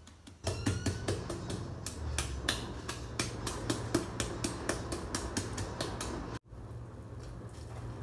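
Meat mallet tapping a fish fillet wrapped in cling wrap on a board: quick, light blows at about four a second, flattening the fillet gently so it doesn't turn mushy. The pounding breaks off abruptly about six seconds in.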